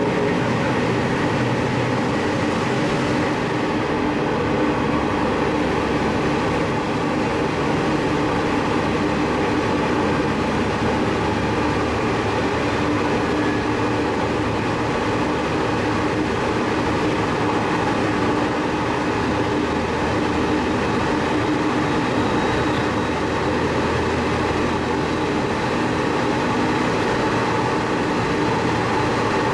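Sanriku Railway diesel railcar running along the line, heard from inside the car: a steady engine drone with wheel-on-rail running noise, holding even throughout.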